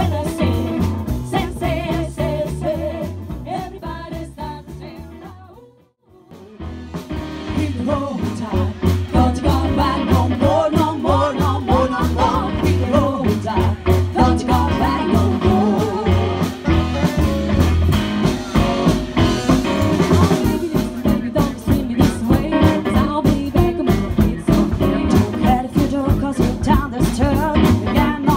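Live band with three women singing together, backed by saxophone, upright double bass and drum kit, playing a song with a steady beat. The music fades and breaks off about six seconds in, then starts up again.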